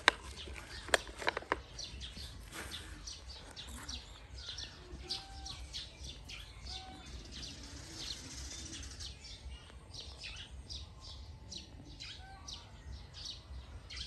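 Birds chirping, with many short chirps throughout and a few sharp clicks in the first couple of seconds.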